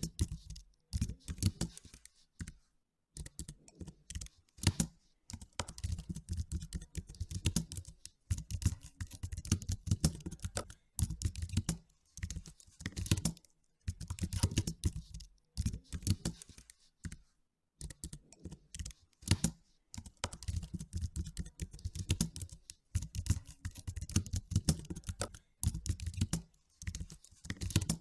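Typing on a computer keyboard: quick runs of key clicks lasting a second or two, broken by short pauses.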